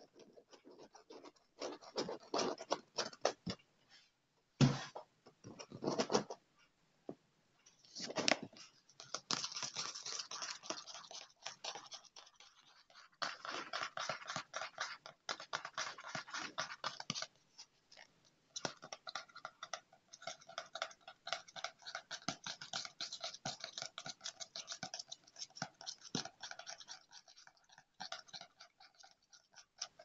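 Fast fingernail tapping and scratching, first on a chair's padded arm, then on a paperback Yellow Pages phone book. It comes in quick bursts with short pauses, with one sharp knock about four and a half seconds in, and runs on steadily through the second half.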